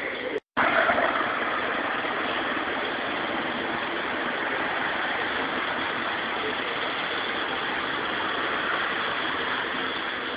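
Steady engine and road noise of a car, starting abruptly about half a second in.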